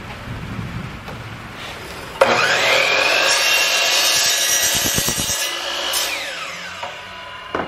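DeWalt sliding miter saw starting about two seconds in with a rising whine, then running loud as the blade crosscuts a 2x4. Near the end the blade winds down with a falling whine, followed by a short click.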